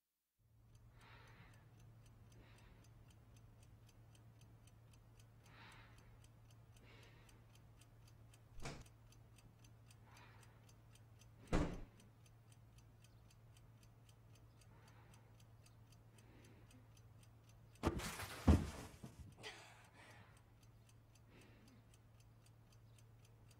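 Faint ticking of a clock over a low steady hum in a quiet bedroom scene, with a few sharp knocks. The loudest knocks come as a cluster about eighteen seconds in.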